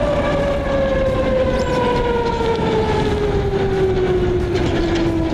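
Heavy tipper truck passing close and pulling away ahead, its engine drone falling slowly and steadily in pitch, over a rumble of wind and road noise on the moving bicycle's camera.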